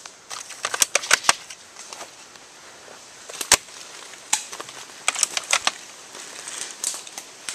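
Airsoft gunfire: sharp clicks and snaps in irregular clusters, with a single louder crack about three and a half seconds in.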